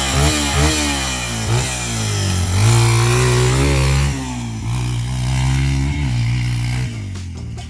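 Yamaha TT-R230 dirt bike's single-cylinder four-stroke engine revving as it is ridden. It gives several quick rises and falls in pitch at the start, holds a higher pitch for a couple of seconds, then eases off and fades near the end.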